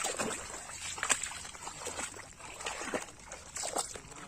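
Water sloshing and splashing in irregular swishes, with a few sharper splashes.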